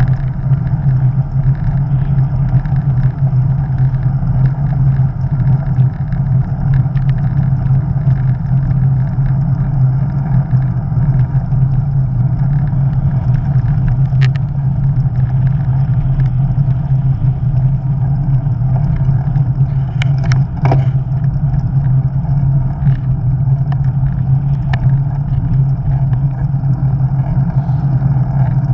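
Wind buffeting the microphone of an action camera on a moving bicycle: a loud, steady low rumble with a few sharp ticks, the clearest about twenty seconds in.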